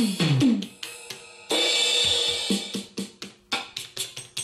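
LinnDrum drum machine playing its sampled drum sounds as its pads are struck by hand: short sharp hits, low drum hits that drop in pitch near the start and the end, and a long cymbal wash about a second and a half in. The machine is working again after its broken 4 MHz clock crystal was replaced.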